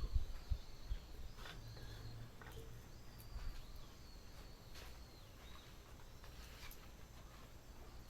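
Wood fire of bamboo kindling and oak logs crackling, with scattered sharp pops and a few low knocks in the first second as logs settle. A faint thin high whistle wavers through the middle.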